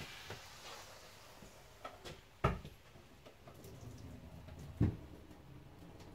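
Mostly quiet kitchen: a faint frying-pan sizzle dies away in the first second or so, then two dull thumps, about two and a half seconds apart, with a few small clicks.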